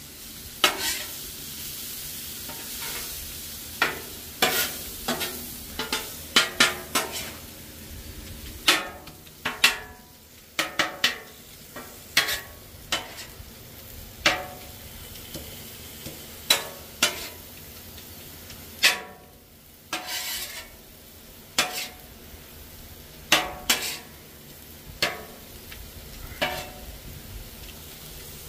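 Meat sizzling on a Blackstone flat-top griddle, with a metal spatula scraping and striking the steel plate in sharp, irregular clicks, about one every second or two.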